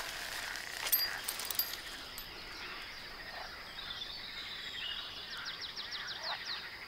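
Outdoor night ambience: a steady high insect buzz, a few faint clicks about a second in, and a quick run of about ten short chirps near the end.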